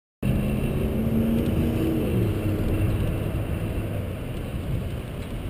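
Road traffic on a highway beside the trail, with a vehicle passing and its engine tone falling in pitch about two seconds in, over a steady low rushing noise.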